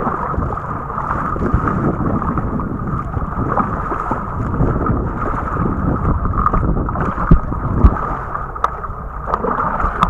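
Kayak paddle strokes and water sloshing and splashing against the hull on a choppy sea, with wind buffeting the microphone. Two low thumps come about seven to eight seconds in.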